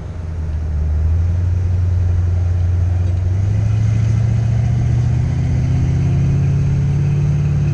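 Vehicle engine running as it drives along, its pitch rising slowly as it speeds up.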